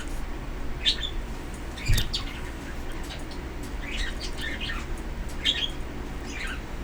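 Pet bird chirping in short calls, five or six times, with faint clicks of small objects being handled and one soft thump about two seconds in.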